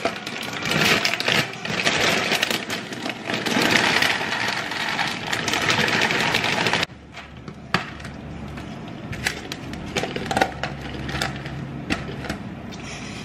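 A large plastic bag crinkling while ring-shaped cereal is poured from it into a plastic food container, the dry pieces rattling in. The crinkling and pouring stop abruptly about seven seconds in, leaving a few light clicks and handling knocks.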